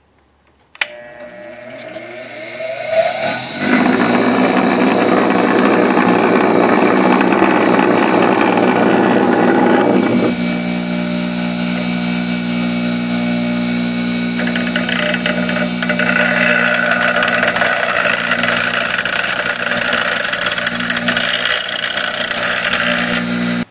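Bench grinder switched on with a click about a second in, its motor whining up to speed, then a steel bolt ground against the spinning wheel to make it narrower: a loud rough grinding noise over the motor's steady hum, easing after about ten seconds and growing stronger again near the end.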